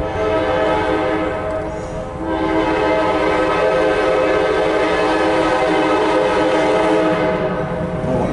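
A CSX freight locomotive's air horn, several notes at once, sounds a long blast for the grade crossing with a brief dip about two seconds in, over the low rumble of the approaching train. It cuts off near the end as the locomotive reaches the crossing.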